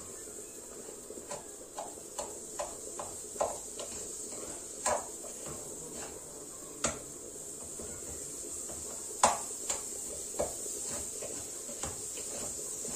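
A wooden spoon stirring bulgur toasting in butter in a small pot, with irregular scrapes and knocks against the pot, the sharpest about 5, 7 and 9 seconds in. A steady faint hiss runs underneath.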